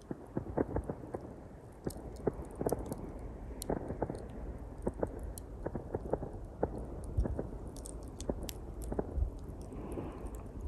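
Small campfire of pine twigs crackling, with frequent sharp pops and snaps, over a steady wash of sea waves.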